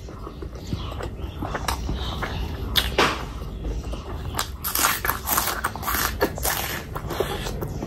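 Close-miked eating sounds: chewing with sharp crisp clicks and crunches, then a dense run of crunching bites into a small raw red onion in the second half.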